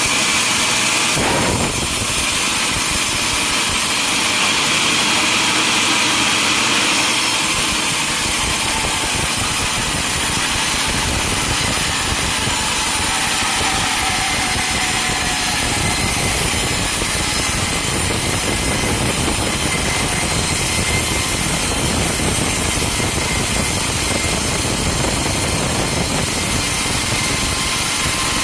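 Sawmill running, its saw cutting through a log with steady engine and cutting noise and a high whine. There is a sharp knock about a second and a half in, and the sound changes about seven seconds in.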